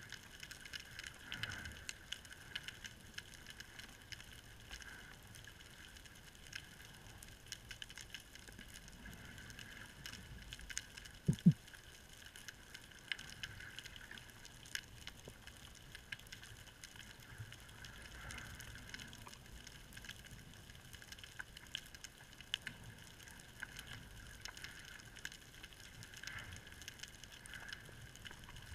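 Underwater ambience heard through a camera housing: a faint steady hiss with scattered small clicks and crackles. About eleven seconds in comes a single short low thump, the loudest sound.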